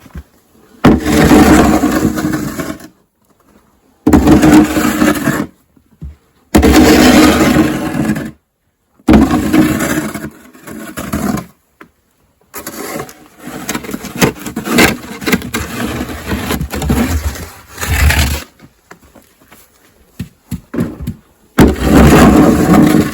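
A shovel scraping snow off wooden boards in repeated pushes, each about two seconds long with short pauses between, cleared down to the bare wood.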